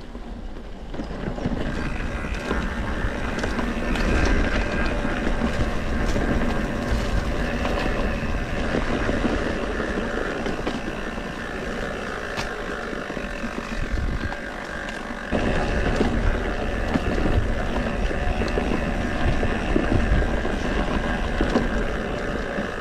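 Mountain bike riding over rough ground, with a steady rattle and rumble under wind buffeting the microphone.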